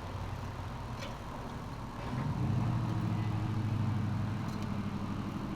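A motor vehicle's engine running nearby: a steady low drone that swells and grows louder about two seconds in, then holds, over a faint constant hum of traffic.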